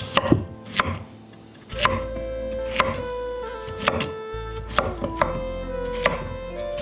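A kitchen knife chopping on a cutting board in sharp, uneven strokes about once or twice a second, with soft instrumental music behind.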